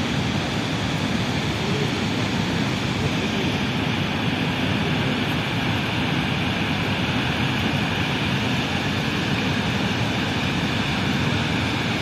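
Large river waterfall's steady roar of falling water, an even rushing noise with no change throughout.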